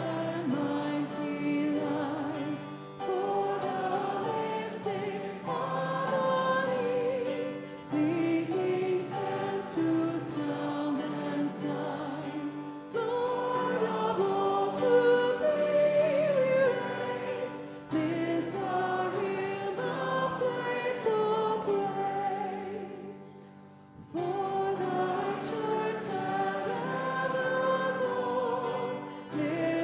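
Congregation and worship band singing a hymn, with piano and acoustic guitar accompaniment. It is sung line by line, with short breaks about every five seconds.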